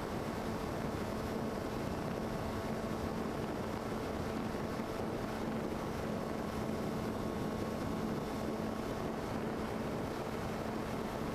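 Electric motor and propeller of a small RC plane running at a steady, even pitch, with air rushing over the onboard camera's microphone.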